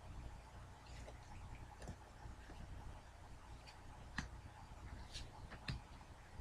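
Faint, irregular light clicks and taps of cardboard trading cards being flipped through by hand, over a low steady hum.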